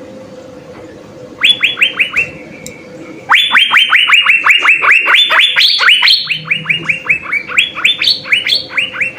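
Asian fairy-bluebird (cucak biru) singing: rapid runs of sharp down-slurred notes, about seven a second, a short run followed by a long run of several seconds with a few higher notes mixed in.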